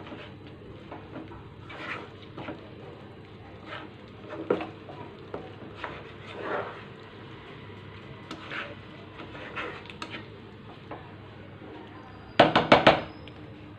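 Spatula scraping and stirring a thick masala paste in a non-stick kadhai, frying the ground spices, in irregular strokes. Near the end comes a quick cluster of louder scrapes and knocks of the spatula against the pan.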